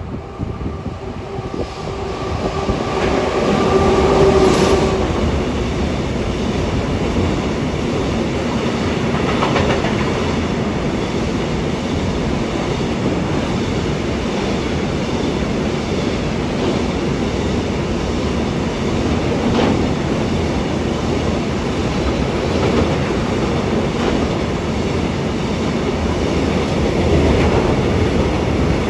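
A freight train passing close. The electric locomotive's steady whine grows louder and is loudest about four seconds in. Then a long rake of Tagnpps covered hopper wagons rolls by with a steady wheel-on-rail rumble and occasional clicks over rail joints.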